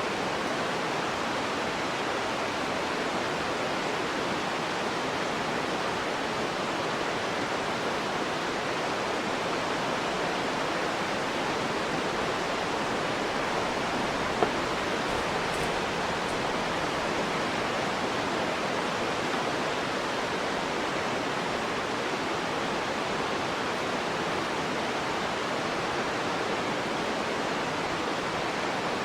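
Steady rushing of stream water, an even hiss-like noise at a constant level, with one brief click about halfway through.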